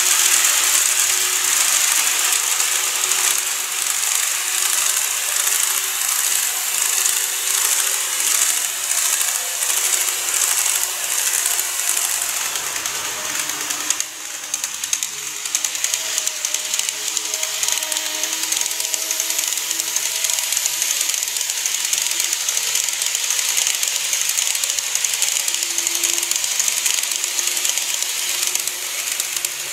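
N-scale model electric trains running on sectional track: a continuous clicking, hissy rattle of the wheels and mechanism. A scene change about halfway shifts the sound, and faint humming tones come in during the second half as another train approaches and passes.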